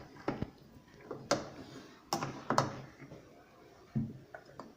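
Scattered sharp clicks and knocks of metal parts being handled as a Consul CWL 10 kg washing machine's brake spring and sleeve are worked back into place, about five knocks over the few seconds with lighter ticks near the end.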